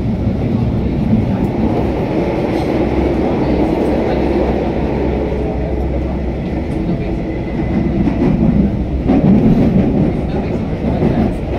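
Delhi Metro train running, a steady rumble that swells slightly about three-quarters of the way through.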